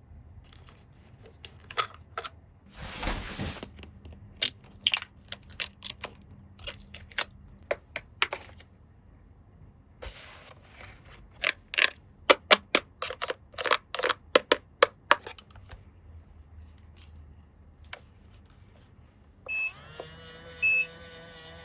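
Small plastic toy parts clicking and tapping in quick, irregular runs, with a short rustle about three seconds in. Near the end a battery-powered toy switches on with a steady electronic tone and short beeps about once a second.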